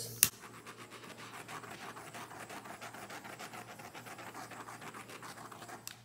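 A small handheld butane torch clicks alight, then its flame hisses steadily with a fine flutter and cuts off just before the end. The flame is being passed over wet white acrylic pour paint to pop air bubbles.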